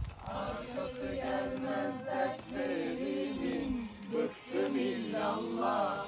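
Several voices singing a slow song, with long, wavering held notes.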